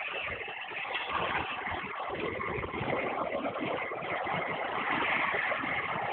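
Fishing boat's engine running steadily, a continuous rushing drone that grows slightly louder.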